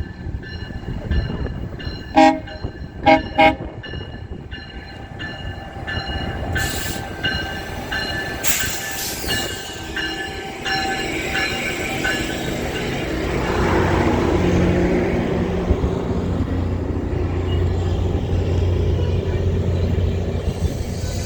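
Train horn giving three short blasts a couple of seconds in. The locomotive's deep rumble then grows louder from about halfway and keeps on steadily.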